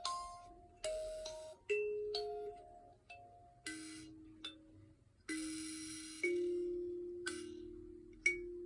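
Handmade kalimba plucked slowly, one note roughly every second, each note ringing out and fading, with now and then two tines sounding together.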